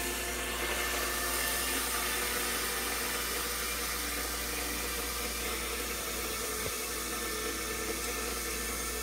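Ground bison patties sizzling on a George Foreman electric contact grill, a steady hiss.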